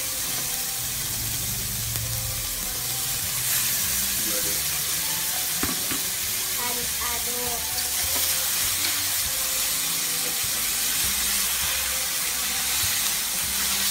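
Broccoli, cauliflower and fish balls sizzling steadily in a hot stainless steel frying pan as they are stir-fried with a wooden spatula, with a single knock about six seconds in.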